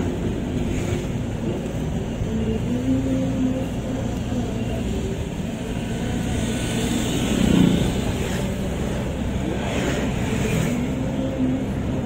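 Steady low rumble of a car driving, engine and tyre noise.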